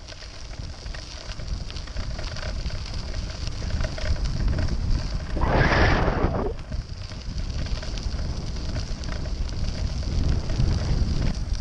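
Wind buffeting the microphone of a camera on a moving bicycle, mixed with low rumble and crackle from tyres rolling over the path. About halfway through there is a louder rush of noise lasting about a second.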